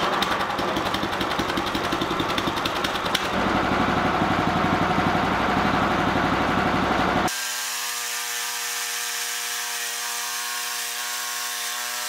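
Harbor Freight portable band sawmill running: its small gasoline engine drives the band blade through a cedar log on the first cut. The sound gets louder about three seconds in. Just past halfway it switches abruptly to a steady, even engine hum.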